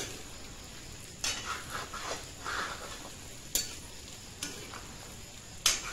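Mutton sizzling as it fries in oil in a black karahi, its own juices already cooked off, while a spoon stirs it, scraping the pan and knocking against it about three times.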